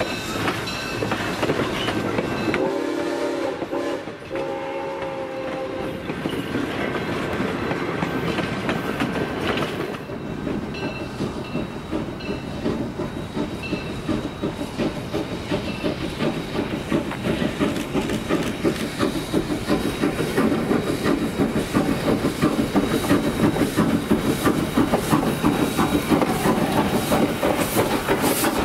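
A train whistle sounds twice a few seconds in. Then a steam-hauled passenger train runs along the track, its wheels clicking over the rail joints, growing louder as the Granite Rock Co. steam locomotive comes up and passes close by.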